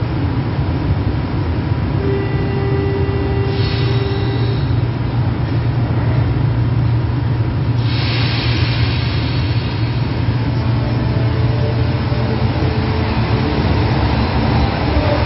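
São Paulo Metro Line 1 train standing at the platform with a steady low hum. About eight seconds in a sudden hiss starts, and the train pulls away with a motor whine.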